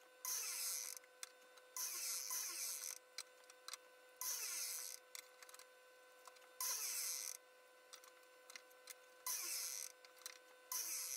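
Miter saw cutting pallet-wood boards: six short bursts of cutting noise, one about every two seconds, each followed by a falling whine as the blade spins down, over a steady electrical hum.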